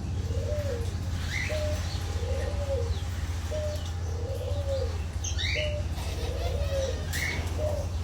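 A dove cooing over and over in an even rhythm, each phrase a short note followed by a longer rising-and-falling one, while other aviary birds chirp now and then in higher voices over a steady low hum.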